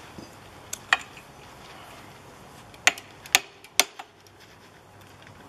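Six sharp clicks or light knocks in two groups: two about a second in, then four close together between about three and four seconds in.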